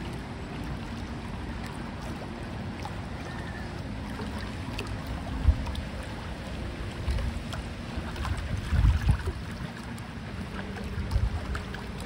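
Wind buffeting the microphone in irregular low rumbling gusts, stronger and more frequent from about halfway on, over a steady wash of choppy lake water.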